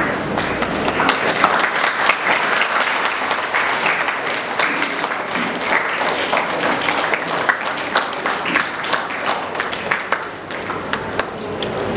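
An audience of schoolchildren applauding with dense clapping that thins to scattered claps near the end.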